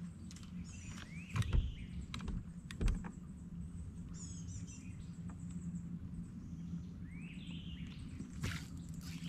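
Birds calling with rising, sweeping notes twice, a few seconds apart, over the steady low hum of a bass boat's bow-mounted trolling motor. Two dull thumps sound between one and three seconds in.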